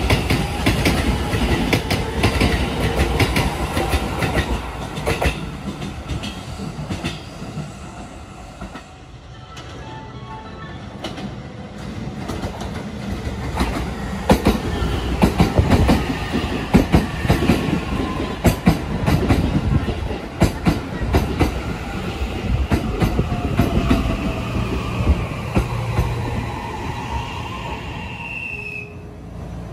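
An electric commuter train pulling out and fading away, wheels clacking over rail joints, followed by a Shin-Keisei 80000 series train running in and clattering past with its motor whine falling in pitch as it slows. A short high squeal comes near the end.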